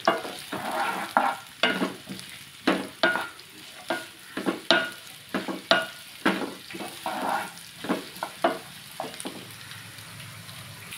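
Wooden spatula stirring and scraping chopped vegetables in hot oil in a non-stick pan, with a light sizzle. The strokes come irregularly, about one or two a second, and stop near the end.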